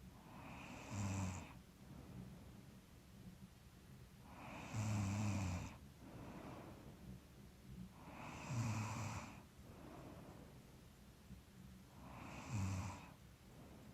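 A person snoring in sleep: four snores spaced about four seconds apart, each a short rough buzz, with softer breathing between them. The sleeper puts the snoring down to being a little stuffy.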